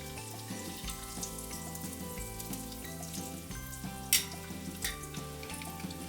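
Panko-breaded thin pork chop deep-frying in hot oil: a steady sizzle with crackling pops, one sharp pop about four seconds in. Background music plays underneath.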